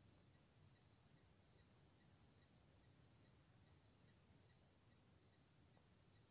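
Near silence: a faint, steady high-pitched background tone with a slight regular pulse under it.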